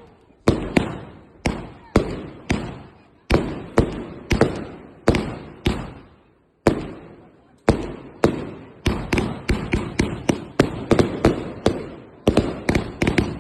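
PyroProdukt Optimum consumer firework battery firing: a rapid series of sharp shots, each fading away quickly, with a short pause a little past the middle and the shots coming faster after it.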